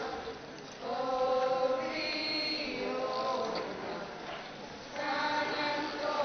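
A group of voices singing or chanting together in long held notes, pausing briefly about half a second in and again around four seconds in.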